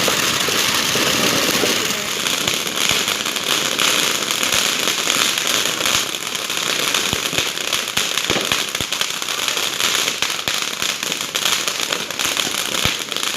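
Many firecrackers and fireworks going off at once: a dense, unbroken crackle with sharper individual bangs scattered through it.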